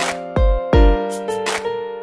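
Background music: held keyboard notes over a beat with two heavy bass-drum hits.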